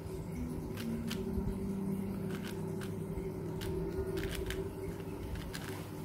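Plastic clicking and clacking of a Yuxin Little Magic 4x4 speed cube as its layers are turned quickly by hand, in irregular clusters of clicks. A steady low hum runs underneath.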